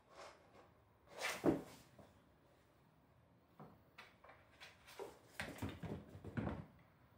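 Two cats scuffling on a wooden floor: short scrapes and thumps, the loudest about a second and a half in, then a run of knocks and rustles as they bump against a plastic pet carrier.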